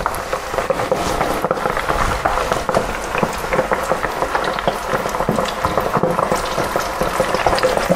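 Coated shrimp deep-frying in hot oil in an electric deep fryer: a steady, dense bubbling and crackling.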